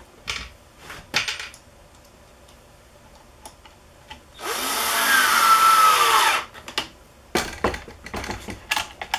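Cordless drill driving a screw into a plywood jig base for about two seconds, its whine dropping in pitch near the end. Short clicks and knocks of screws and the clamp being handled come before and after.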